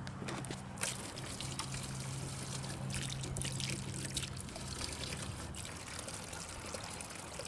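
Water from a garden hose pouring into a plastic gallon milk jug, splashing and trickling, as the jug olla is flushed to check that it still drains. A faint low hum underneath fades out about halfway through.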